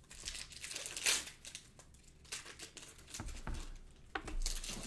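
Plastic wrapping crinkling and rustling as it is handled, in short irregular rustles, the strongest about a second in and again near the end.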